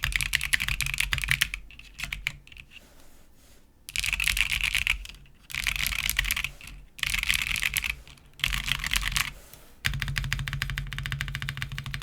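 Snake60 mechanical keyboard with Tecsee Coral tactile switches, an FR4 plate, PBT keycaps and no foam, typed on fast. Rapid keystrokes come in bursts of about a second with short pauses between, plus a few scattered single keystrokes about two to four seconds in.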